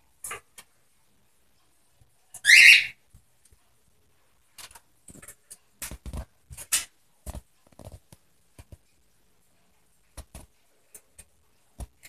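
Cockatiels on a wooden play gym: one short, loud cockatiel call about two and a half seconds in, among scattered light taps and clicks from the birds moving on the wooden perches.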